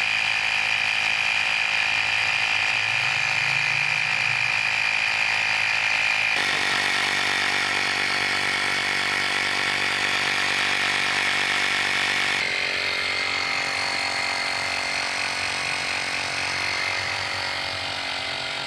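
12V portable tyre inflator's electric air compressor running steadily while inflating a flat car tyre: a continuous buzzing whine. Its tone shifts abruptly twice.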